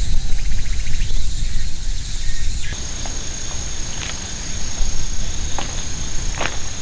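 Insects chirping in a rapid pulsing pattern over a low steady rumble. About a third of the way in the sound changes to one steady high-pitched insect trill, with a few light clicks.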